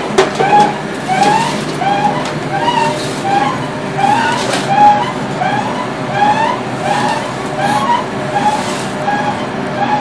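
Four-outlet charcoal extrusion press running, pushing out charcoal rods. A steady motor hum runs under a short, rising squeak that repeats about twice a second with each turn of the machine.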